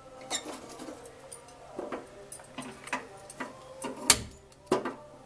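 Irregular clinks and knocks of metal cookware being handled on a gas stove. The loudest is a knock with a dull thump about four seconds in, followed by another sharp clink soon after.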